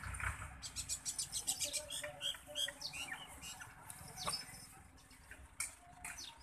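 Small birds chirping: a quick run of high chirps in the first two seconds, then scattered short chirps.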